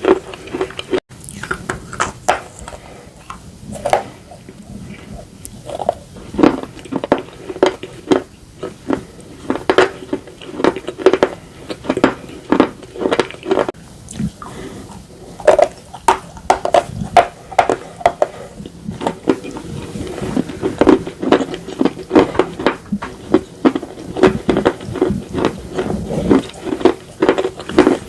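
Slate pencil pieces being bitten and chewed close to the microphone: a continuous run of sharp, dry crunches, several a second, most crowded in the last third.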